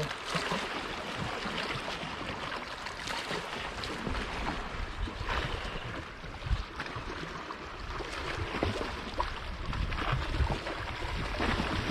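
A magnet-fishing rope is hauled in hand over hand from the lake, with small rubbing and clicking sounds over lapping water. Wind rumbles on the microphone now and then.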